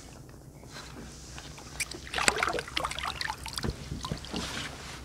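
Water splashing and dripping as a golden dorado is grabbed with a lip-grip and lifted out of the river. Scattered short splashes and knocks start about two seconds in.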